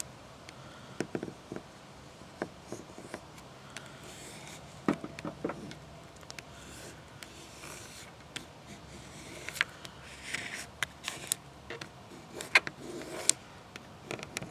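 A hard plastic card scraped and rubbed over a vinyl decal's transfer tape on glass to press out air bubbles: irregular swiping strokes with sharp clicks and taps.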